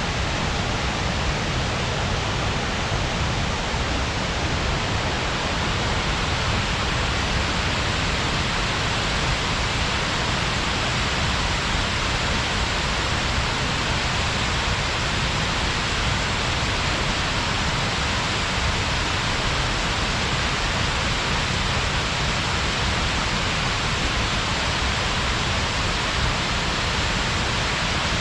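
Shiraito Falls, a wide curtain of many thin spring-fed falls, pouring into its plunge pool: a steady, unbroken rush of falling water that holds the same level throughout.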